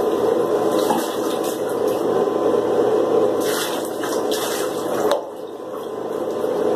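Water running into a bathtub, with splashes as water is scooped and poured over a puppy from a cup. The running water drops suddenly in level about five seconds in.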